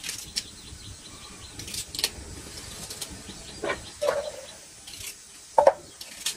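Kitchen knife cutting a vegetable by hand in short strokes, with pieces dropping into a small metal pot: a few scattered sharp clicks and knocks, the loudest near the end.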